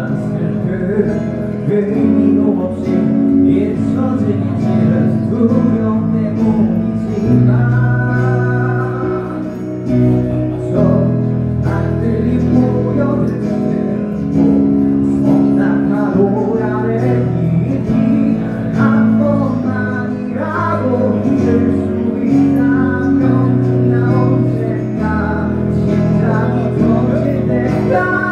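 Live band music: a male singer singing over acoustic guitar, bass guitar and keyboard.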